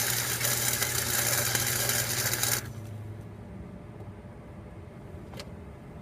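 Flux-core wire-feed welding arc crackling, with the welder's steady low hum, cutting off suddenly a little over halfway in when the bead ends. A single sharp click follows near the end.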